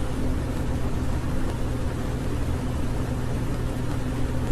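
A steady low hum with hiss over it, unbroken and even in level.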